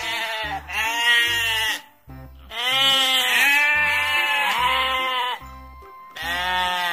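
A flock of sheep bleating: a run of long, wavering bleats, several overlapping in the middle, over background music.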